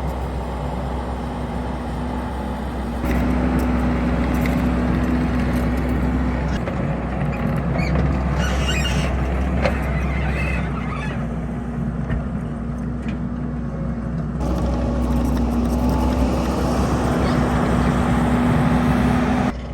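Skid steer engine running steadily as the machine levels ground. It gets louder about three seconds in and changes again about two-thirds of the way through.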